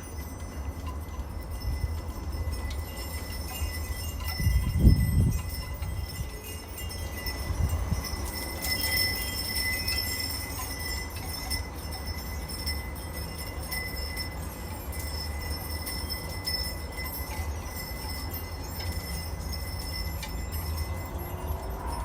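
Porch wind chimes ringing softly with sustained tones that swell about eight seconds in. Underneath runs a low wind rumble on the microphone, with one louder gust about five seconds in.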